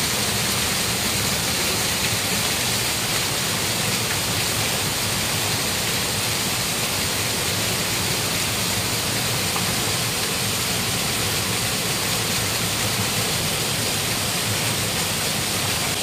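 Waterfall pouring steadily, a constant even noise of falling water.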